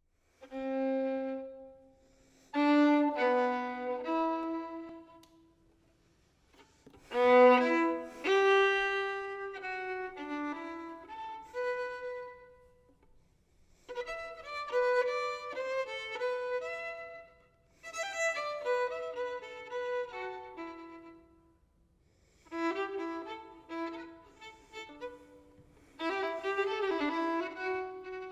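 Solo violin playing a slow melody in short phrases of held notes, broken by brief pauses.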